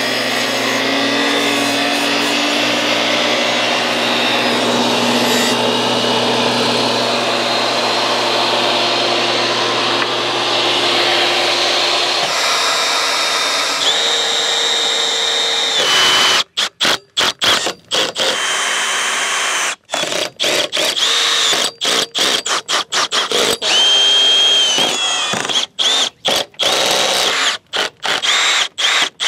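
A table saw runs and cuts along the wooden roost bars, its blade set at an angle to round off their edges. About halfway through it gives way to a power drill driving screws in short stop-start bursts, each with a high whine.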